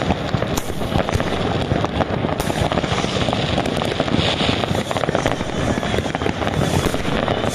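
Many fireworks and firecrackers going off at once, a continuous crackle dense with bangs and no let-up.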